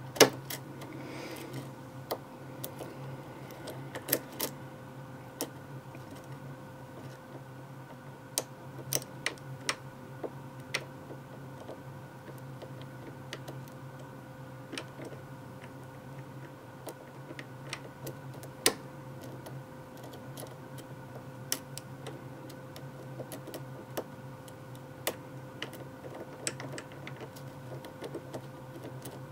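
A lock pick working the pin stack of a custom-pinned five-pin rim cylinder held under a tension tool: irregular light clicks and taps as the pins are lifted and set. The clicks are busiest in the first ten seconds, over a steady electrical hum.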